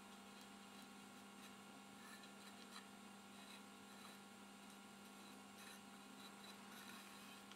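Near silence: a faint steady electrical hum with a few faint ticks.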